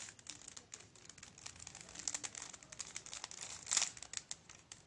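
Plastic clicks and rattles of a Penrose cube's layers being twisted by hand, in quick irregular taps with a louder cluster nearly four seconds in.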